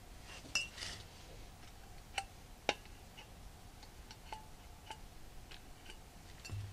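Faint, irregular metallic clicks and clinks from a pump oil can being worked and touched against the engine block while the main bearing shells are oiled.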